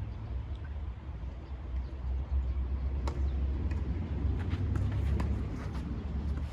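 Tennis balls struck by rackets and bouncing on the court during a rally, heard as sharp pops about 3 seconds in and several more between 4.5 and 6 seconds, over a steady low rumble.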